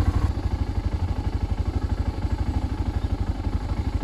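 Single-cylinder four-stroke engine of a 2001 BMW F650GS running, with a steady, rapid, even thumping beat heard from the rider's seat.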